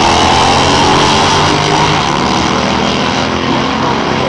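Two Harley-Davidson V-twin drag bikes running at full throttle down the drag strip, the loud engine noise easing slightly after about two seconds as they pull away.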